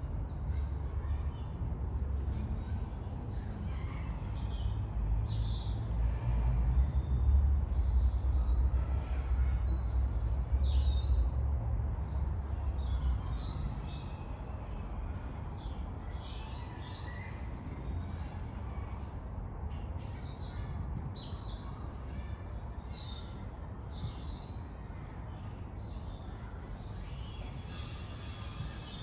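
Several small birds singing and calling in quick, overlapping chirps and trills, over a low rumble that is loudest in the first half and then eases off. A hissing, mechanical sound comes in near the end.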